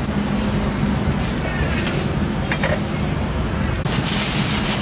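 Thin plastic bag crinkling loudly as braised meat is tipped into it, starting a little before the end, over a steady low engine hum. A few sharp knocks sound earlier.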